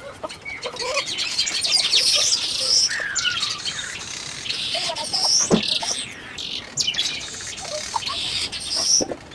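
Birds chirping and twittering, many short high chirps and quick sweeps overlapping, with a single sharp knock about halfway through.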